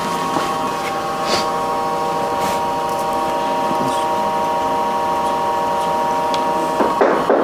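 Steady hum of a running workshop machine, with a few light knocks and scrapes as a steel cutting die is handled and set down on fabric. A louder, rougher stretch of noise comes near the end.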